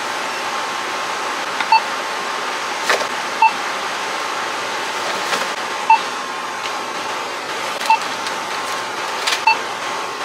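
Barcode scanner at a self-checkout beeping as items are passed over it: five short beeps about two seconds apart, over a steady hiss of store background noise.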